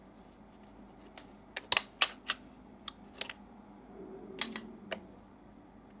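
Plastic battery cover on the underside of an AJAZZ 308i Bluetooth keyboard being opened by hand: a quick cluster of sharp clicks about two seconds in, a few single clicks after, then a light rub and more clicks as the cover comes off.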